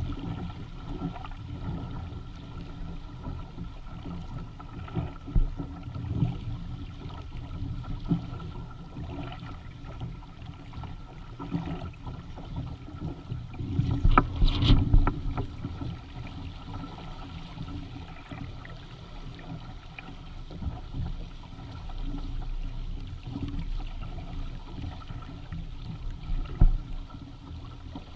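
Water rushing and splashing along the hull and outrigger floats of a Hobie Tandem Island sailing kayak under way, over a low rumble of wind on the microphone. A louder surge of splashing comes about halfway through, and a short sharp splash near the end.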